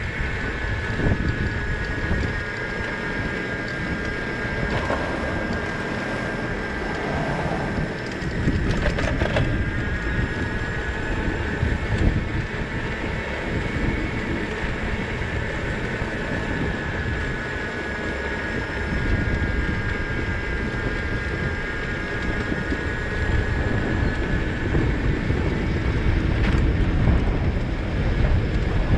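Wind buffeting the microphone and tyre noise of a bicycle rolling along a paved road, with a steady high whine, plus a brief rattle of clicks about nine seconds in.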